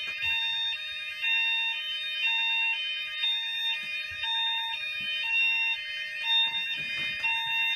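Fire alarm system sounders going off together in full fire condition, set off by a smoke detector sensing smoke. Several high tones warble and overlap, over a lower two-note tone that alternates about twice a second.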